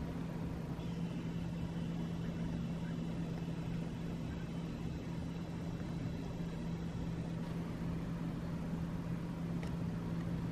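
Steady low room hum with a faint hiss, and a faint high whine from about a second in until about seven seconds in.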